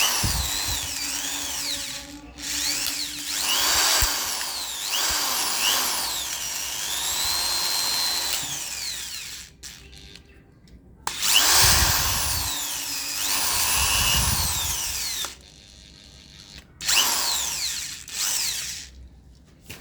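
I Bell SD 12-75 electric screwdriver-drill motor running in three bursts. Its whine rises and falls in pitch as the variable-speed trigger is squeezed and eased.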